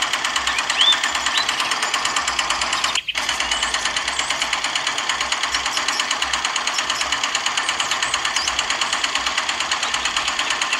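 Small electric motor of a miniature model tractor running steadily with a rapid, even rattle, driving a toy water pump through a rubber belt. The sound drops out for an instant about three seconds in.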